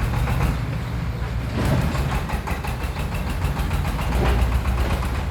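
Single-cylinder diesel engine of a công nông farm truck running steadily with an even, rapid chug.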